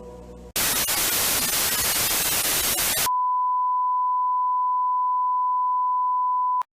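Loud television static hiss for about two and a half seconds, then a steady single-pitch test tone for about three and a half seconds that cuts off suddenly: a broadcast going off the air after sign-off.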